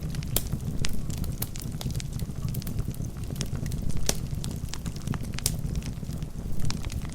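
Wood fire burning in a fireplace: a steady low rumble of flames with irregular sharp crackles and pops from the logs.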